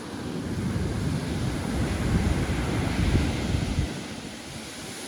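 Pacific Ocean surf: a wave breaking and washing in, building over the first second, loudest around two to three seconds, then easing off. Wind buffets the microphone with a low rumble.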